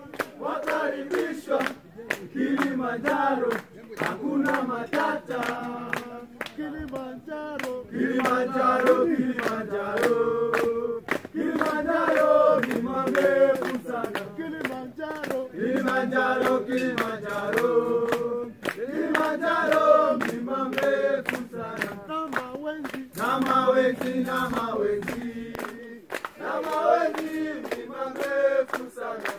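A group of voices, men and women, singing and chanting a song together, with clapping.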